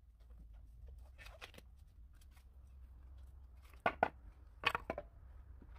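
Light rustling and handling noise as a nitrile glove is pulled on, then small pieces of pallet wood knocking together in the hands, with a few sharp clacks near the end.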